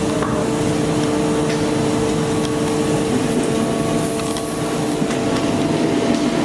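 Brokk 160 demolition robot's hydraulic power pack running steadily, a constant machine drone with a steady two-note whine that drops away about a second before the end.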